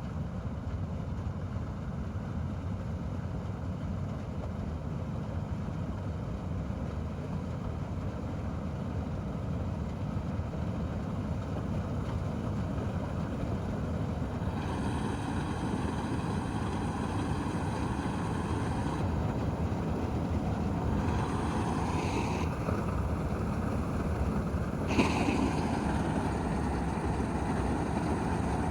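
Combine harvester running steadily while cutting paddy, its engine and machinery a constant drone. From about halfway a high whine cuts in and out a few times, then stays on near the end.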